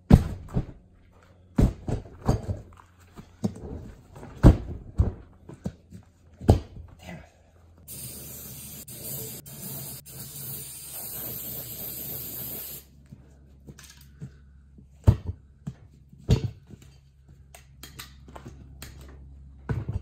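A sharp pop as the flammable fluid inside a flat tubeless lawn-tractor tire lights, a bead-seating attempt, followed by scattered knocks and clicks. Midway, about five seconds of steady hissing from a spray can as more fluid is sprayed at the tire.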